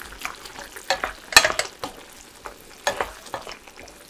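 Wooden spoon stirring chunky potato-and-tuna braise in a pan of bubbling gochujang sauce: a few irregular scrapes and knocks against the pan, the loudest about a second and a half in, over a faint sizzle.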